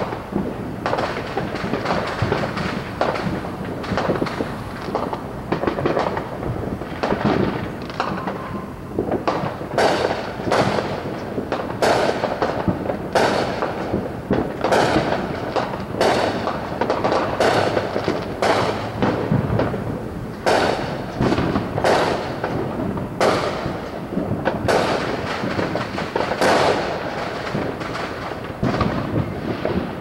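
Distant fireworks going off in a rapid, overlapping string of bangs and crackles, each echoing after it; the barrage is thickest through the middle and thins near the end.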